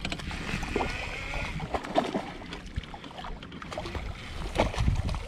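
Spinning reel being cranked as a hooked crappie is reeled in toward the boat, with water sloshing against the hull and a steady low rumble underneath.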